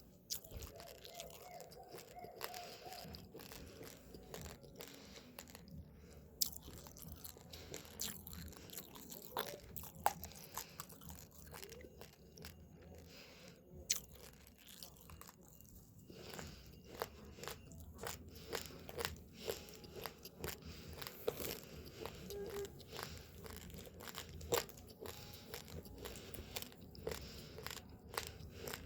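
A person chewing uncooked rice: hard grains crack between the teeth in many sharp, irregular crunches.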